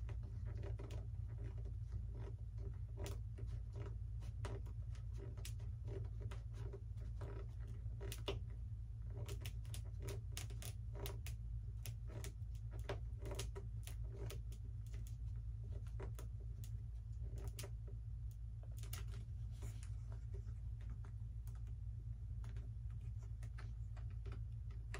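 Irregular small clicks and taps of a screwdriver and fingers working a screw into the plastic tail-wheel fitting of a foam model plane, over a steady low hum.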